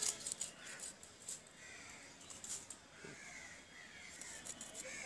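Crows cawing repeatedly, over a run of short sharp clicks and scrapes from a hilsa being cut on a boti blade.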